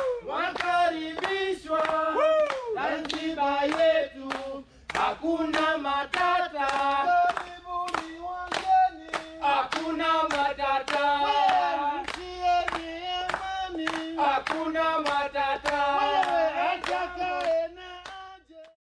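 A group of voices singing a melody together without instruments, with hand claps about twice a second keeping time; it fades out near the end.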